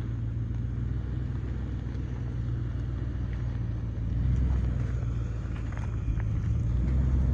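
A vehicle's engine runs at low speed with a steady low rumble, growing louder about four seconds in and again near the end.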